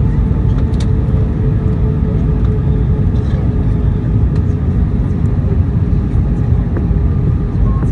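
Steady cabin noise inside an Airbus A321-131 on approach: a loud, even rumble of its IAE V2500 turbofan engines and airflow over the fuselage, with a faint steady hum.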